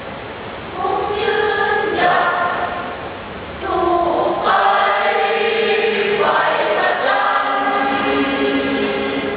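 A school students' choir singing in harmony, holding sustained chords that move to new notes every second or two.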